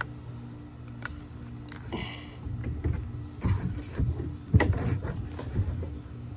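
A rifle and gear being handled on a shooting table: several short knocks and clicks, the loudest a bit after four and a half seconds, over a steady low hum.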